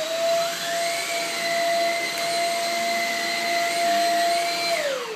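Shark Rocket corded stick vacuum running on carpet: a steady motor whine over a rush of airflow, then switched off near the end, the whine falling in pitch as the motor winds down.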